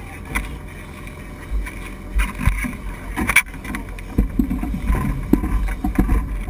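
Sportfishing boat at sea: a steady low rumble from the boat and wind on the microphone, with a few sharp knocks and clatter on the deck.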